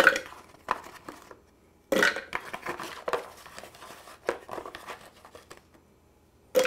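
Hard pieces of peanut brittle dropped one by one into a plastic food processor bowl, clattering against it in irregular knocks. The loudest come at the start and about two seconds in.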